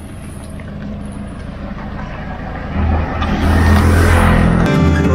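A motor vehicle's engine running with a steady low hum that grows louder about three seconds in; music starts near the end.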